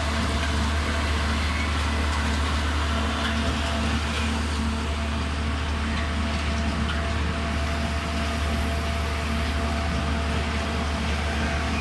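Engine of a concrete mixer pump truck running steadily: a constant low hum with a few steady tones over it, unchanging throughout.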